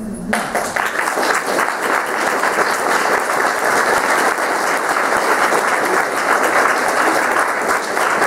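Audience applauding, breaking out just after the start and going on steadily.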